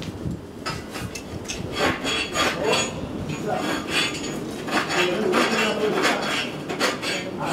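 Irregular metallic clanking and clinking: a rapid run of knocks and scrapes with a ringing edge, starting about half a second in.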